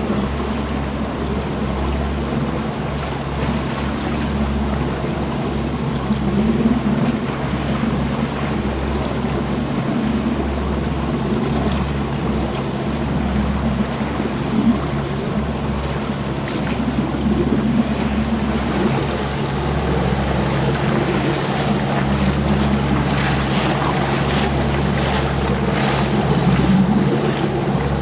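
Motorboat engine running steadily with a low drone, over water splashing along the hull.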